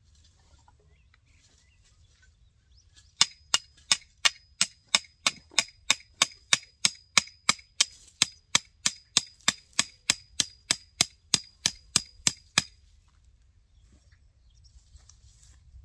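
Hammer striking the top of a thin metal fence post to drive it into the ground: a run of about thirty sharp metallic strikes, roughly three a second, each with a brief ring, starting about three seconds in and stopping a few seconds before the end.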